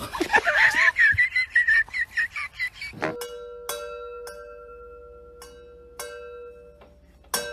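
A high, wavering cry for about three seconds, then a cat tapping glass wine bottles in a rack: about six taps, each leaving a clear ringing tone.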